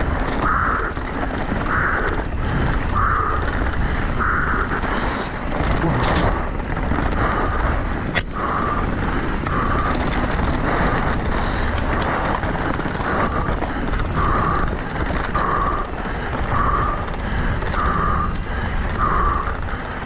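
Mountain bike ridden fast down a dirt trail: steady tyre and drivetrain rattle with wind on the microphone, a short sound repeating about once a second, and one sharp knock about eight seconds in.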